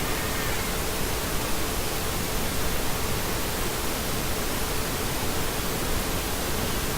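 Steady hiss of background noise with a faint steady hum-like tone underneath, unchanging throughout.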